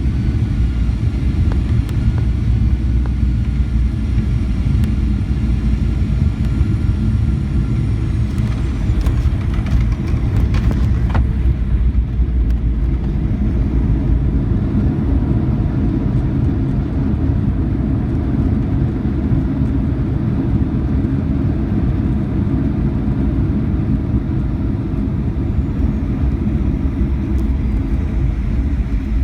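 Steady loud rumble of a Boeing 737-900ER's engines and airflow heard inside the passenger cabin, with a faint whine that fades away in the first several seconds.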